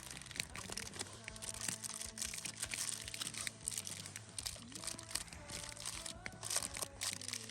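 Crinkling and crumpling as the wrapping of a fish 'boat' is folded up and pinched closed by hand, made of many small irregular crackles. Quiet background music with held notes plays underneath.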